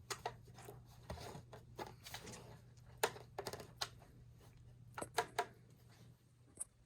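Kitten batting and pouncing on a crinkle toy mouse: irregular taps, clicks and short crinkly rustles, with sharper clatters about three seconds in and again around five seconds, over a low steady hum.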